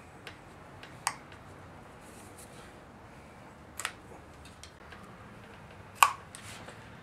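Sharp metal clicks and taps of hand tools on engine parts: three louder ones about a second, four seconds and six seconds in, the last the loudest, with fainter ticks between.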